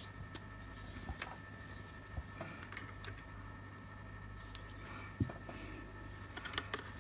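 Faint scattered clicks and light taps of small-parts handling on a repair bench, as the motion sensor of a PIR security light is cleaned, over a steady low electrical hum.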